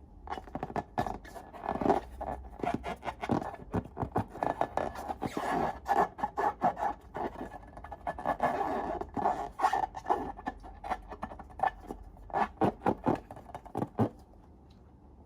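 Slime being worked by hand: a dense run of sticky clicks, crackles and scraping squelches that stops abruptly about 14 seconds in.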